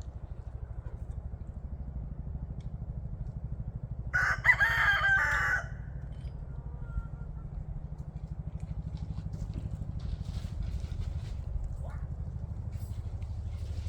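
A rooster crows once, a call of about a second and a half starting about four seconds in, over a steady low rumble.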